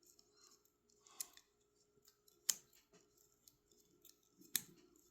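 Faint small metal clicks and ticks of a screwdriver working the tiny pocket clip screws on a Civivi Sencut folding knife. Two sharper clicks come about two and a half and four and a half seconds in.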